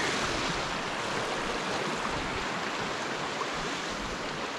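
Creek water flowing steadily, an even, unbroken rush of noise.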